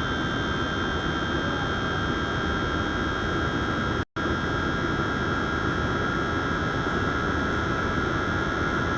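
Miniature air conditioner's small fan running steadily: a rush of air with a constant high-pitched motor whine. It cuts out for an instant about four seconds in.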